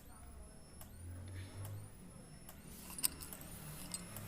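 Tea being strained into a cup, with a short hiss of pouring and a cluster of sharp clinks, the loudest about three seconds in.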